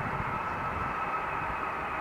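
Bombardier CRJ-200 regional jet's GE CF34 turbofan engines running with a steady whine over a low rumble.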